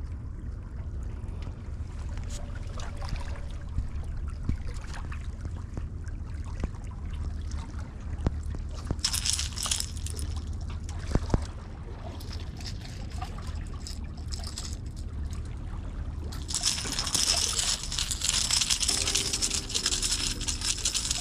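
Water sloshing and trickling at the shoreline over a steady low rumble. A short burst of splashing comes about nine seconds in as a hooked needlefish is lifted clear of the surface, and a louder, longer spell of splashing and wet noise follows from about sixteen seconds in as the fish is brought onto the rocks.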